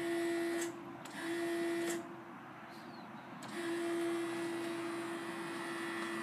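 A steady, mid-pitched electric whine from the forklift, in three spells: briefly at the start, again about a second in, then from about three and a half seconds in onward. It comes as the forklift is tried and won't start.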